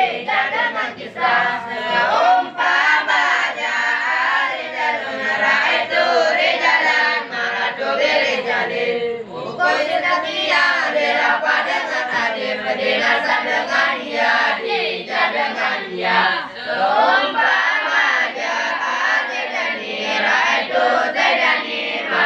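A group of teenage boys chanting a nadham (Arabic grammar rules on nouns and verbs, nahwu and sharaf, set in verse) together in a sing-song unison recitation in Acehnese, unaccompanied, with brief breaks between lines.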